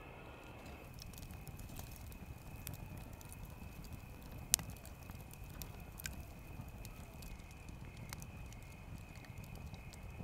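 Wood campfire burning in a metal fire ring, crackling with scattered sharp pops, the loudest about four and a half seconds in.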